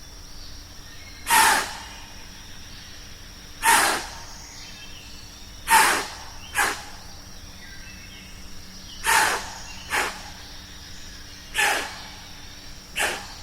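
A series of loud, short, breathy snorts of air, about eight of them, coming every couple of seconds and sometimes in quick pairs, over a steady faint outdoor background.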